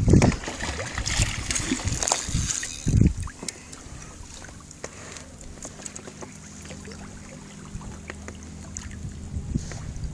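Wind buffeting the microphone for about the first three seconds, then quieter water lapping and trickling around a kayak, with scattered small knocks and a faint steady low hum.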